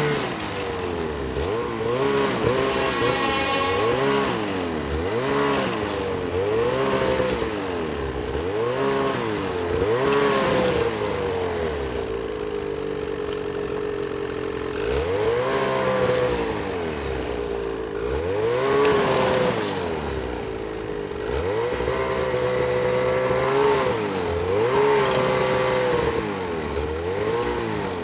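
Snowmobile engine revved up and down over and over, about once a second, while the sled barely moves in deep snow.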